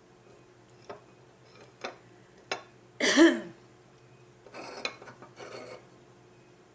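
Eating sounds: a few light clicks, then a loud, short burp about three seconds in, followed by two short scratchy bursts.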